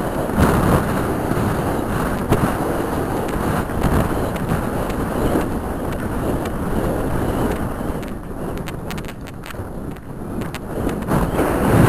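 Wind rushing over the microphone of a horse-mounted camera as the horse gallops a cross-country course, with its hoofbeats thudding underneath. The rush eases for a couple of seconds near the end, then builds again.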